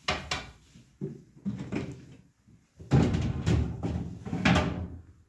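Handling noise from emptying a refrigerator: plastic shelves, drawers and food containers knocked, slid and set down in irregular bursts, busiest and loudest from about three seconds in.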